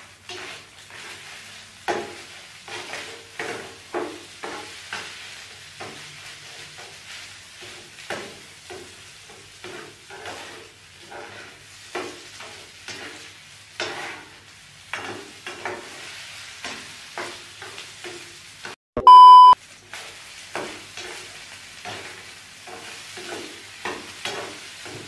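Rice and scrambled egg stir-frying in a pan: a steady sizzle, with a metal spoon scraping and knocking against the pan about twice a second. About three-quarters of the way through, a short, loud electronic beep cuts in.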